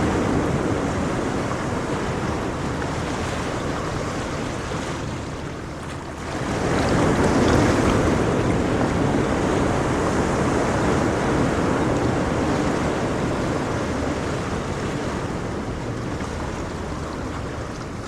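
Gentle ocean waves washing on the shore: the surf eases off, then a new wave swells in about six seconds in and slowly recedes.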